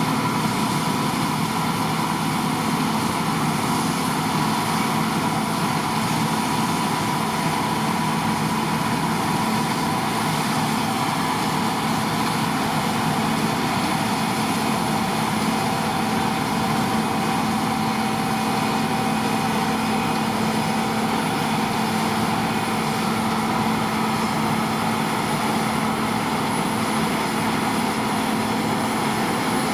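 John Deere T560 Hill Master combine harvester running steadily while cutting barley: a constant engine and machinery drone with a steady higher whine above it.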